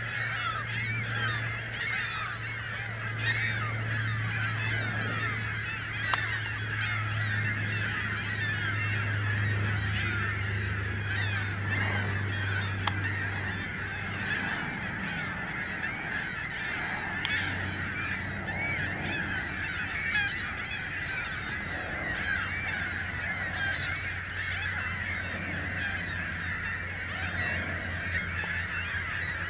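A flock of trumpeter swans honking, many calls overlapping in a dense, continuous chorus.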